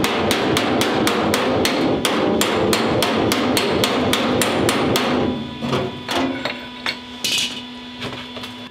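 Hammer and dolly tapping a steel patch panel into a 2004 Dodge Dakota's quarter panel: quick, light metal knocks about four or five a second, thinning to a few scattered taps about five seconds in.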